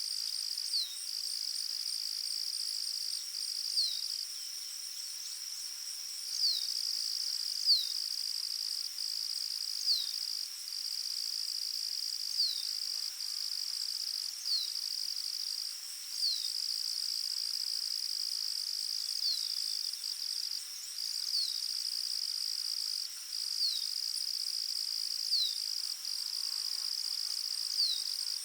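Forest ambience: insects trilling steadily at a high pitch, with brief breaks, and a bird repeating a short downward-sliding call note every second or two.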